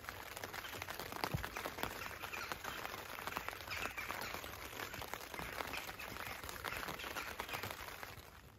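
Outdoor morning ambience with birds chirping over a dense crackle of small ticks, dropping away suddenly near the end.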